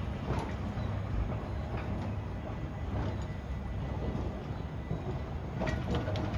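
Electric tram running on its track with a steady low hum, and a few sharp clicks near the end.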